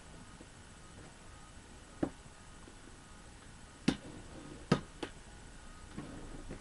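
A cardboard shipping box being handled and cut open with a knife: four sharp knocks and clicks. The two loudest come about a second apart, just past the middle.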